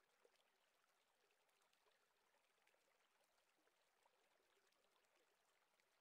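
Near silence: the sound track drops out almost completely.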